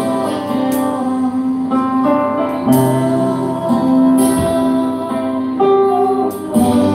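Live worship music: a woman singing held, slow notes over guitar and keyboard accompaniment.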